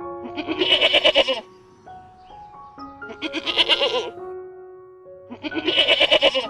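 Three loud, quavering bleats from a sheep or goat, each about a second long and spaced a couple of seconds apart, over soft background piano music.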